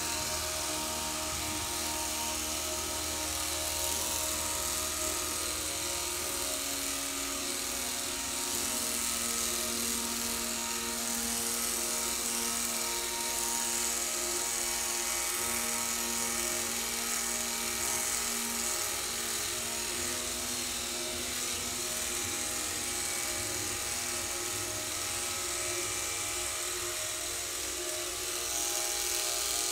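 Electric pet hair clippers buzzing steadily as they shave a cat's long white fur.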